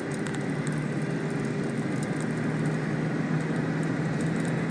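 Car on the move: a steady engine hum under even road noise, with a few faint ticks.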